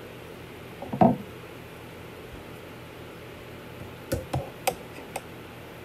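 A woman's single short cough about a second in, then a handful of light knocks and taps near the end as things are handled.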